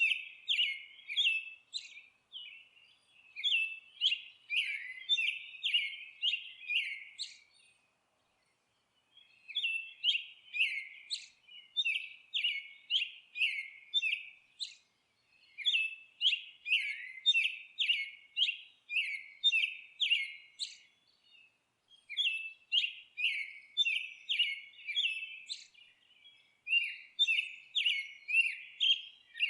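A songbird singing in phrases of quick, repeated chirps, each phrase lasting several seconds, with short pauses between them.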